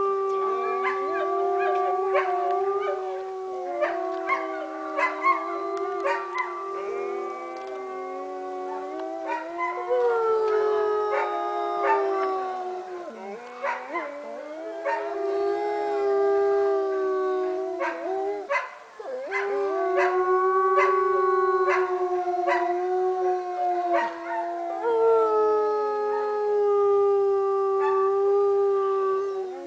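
Wolves howling in chorus: two or more long, held howls at different pitches overlap, some sliding up or down, with short sharp yips scattered among them. The howling eases briefly past the middle, then swells again.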